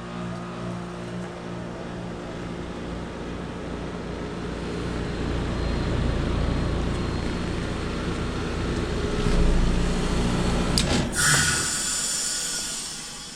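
2011 American Standard Heritage 15 heat pump outdoor unit, its compressor humming steadily and growing louder. About 11 seconds in there is a sudden loud whoosh of refrigerant hiss, typical of the reversing valve shifting over a defrost change, and it trails off.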